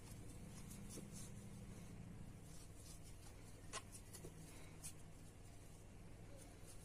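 Faint rustling and light scratching of a metal crochet hook pulling yarn through stitches, with two sharper ticks a little past the middle, over a low steady room hum.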